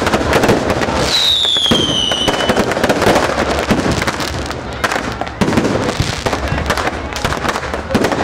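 Aerial fireworks going off overhead in a dense, continuous crackle of bangs and pops. About a second in, a high whistle falls in pitch for a second or so.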